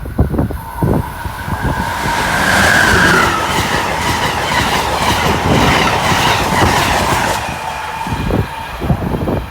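Southbound Amtrak Northeast Corridor train passing on the rails: a loud rush of wheels and rail noise that builds over the first two seconds, holds with a steady whine, and fades near the end.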